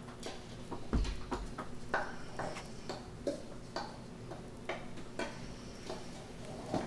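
Wooden spoon knocking and scraping against a ceramic bowl as a soupy vegetable mix is scooped out into a mixing bowl of ground meat: irregular clicks and taps, with a dull thump about a second in.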